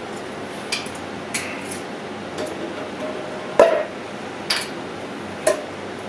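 A weight plate being loaded onto a Smith machine barbell sleeve: a series of metallic clanks and clicks, the loudest about three and a half seconds in. Under it runs the steady hiss of an air conditioner.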